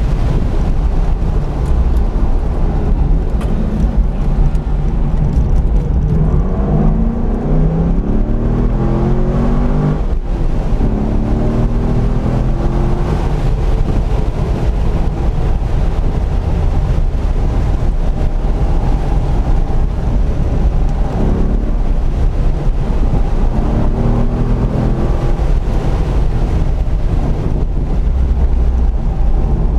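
Chevrolet Corvette C5 Z06's LS6 V8 pulling hard on track, heard inside the cabin. The engine note rises in pitch a few times and breaks off about ten seconds in, over steady low road and wind rumble.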